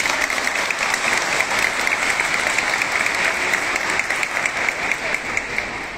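Audience applauding: dense clapping that starts abruptly and thins out slightly toward the end.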